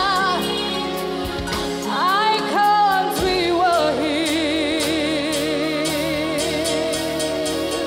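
A woman singing a slow ballad over instrumental backing, her voice wavering with vibrato. About halfway through she settles into one long held note.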